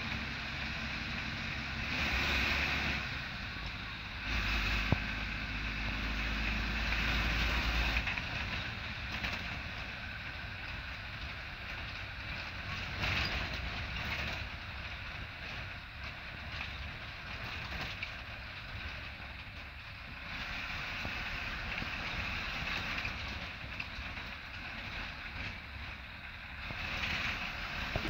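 Moving bus heard from inside its cab: the diesel engine running under a steady rush of road and wind noise, swelling louder a few times, with one sharp click about five seconds in.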